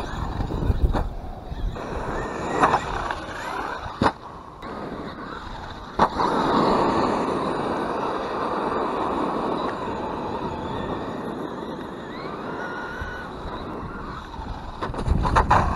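Traxxas Jato RC truck with a brushless Velineon 3500 motor, driving over gravel and asphalt. Its tyres make a rough rolling noise and the motor whines as it rises and falls with the throttle. Several sharp knocks come as the truck lands or hits bumps, the loudest about six seconds in and a quick cluster near the end.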